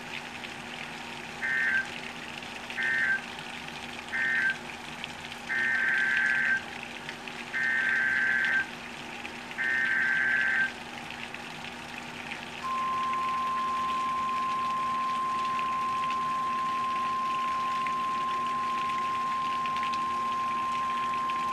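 Weather-alert radio sounding an alert over steady heavy-rain hiss: three short beeps, then three one-second squawks of the coded alert header, then a single steady high alarm tone from about halfway through. This is the NOAA Weather Radio warning signal, which means a severe-weather warning is being broadcast.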